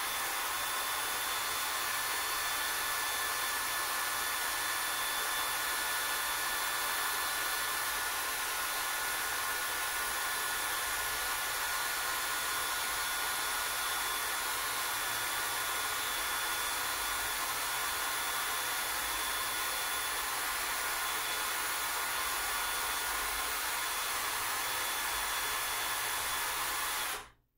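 Cordless power drill running steadily on low torque, twisting strands of plastic grocery-bag cord into rope. It cuts off suddenly near the end.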